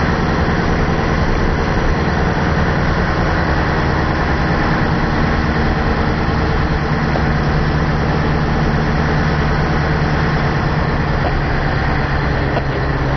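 Scania 141's V8 diesel engine running steadily under way, heard from inside the truck's cab, with a deep, even drone.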